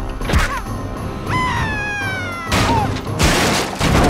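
Cartoon fight sound effects over dramatic action music: a sharp hit about half a second in, then a high cry that slides slowly down in pitch for about a second, followed by crashes of splintering wood near the end.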